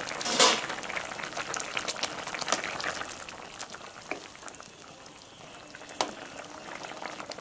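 Pot of yellow split-pea dal with vegetables bubbling at a boil, a steady crackle of popping bubbles, with a brief louder burst about half a second in. Partway through, a wooden spatula stirs through the thick dal.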